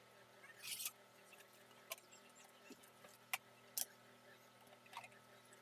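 Near silence: a low steady hum with a few faint sharp clicks and one short rustle about a second in.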